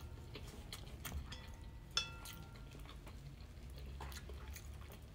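Wooden chopsticks and spoon tapping and scraping on a ceramic plate while food is picked up. One sharper clack about two seconds in leaves the plate ringing briefly.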